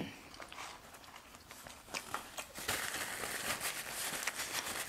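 Fast-food paper wrapper crinkling and rustling as it is handled, densest over the second half, with a few scattered soft clicks before it.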